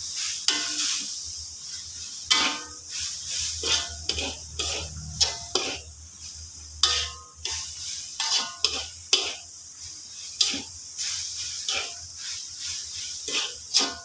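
Metal spatula scraping and turning grated coconut around a metal wok, in irregular strokes about one or two a second, over a steady hiss from the pan as the coconut dry-fries.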